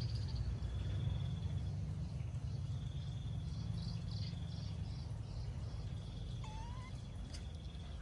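Countryside ambience: insects trilling in stretches, with a run of pulsed calls at about three a second midway and a short rising bird chirp near the end, over a steady low rumble.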